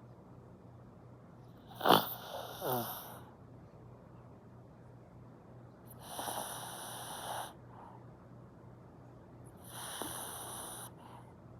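A dog snoring in its sleep: three snores about four seconds apart, the first, about two seconds in, the loudest and sharpest.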